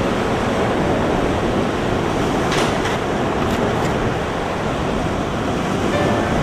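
Steady rush of ocean surf washing against a rocky shore, with a few brief splashes a few seconds in.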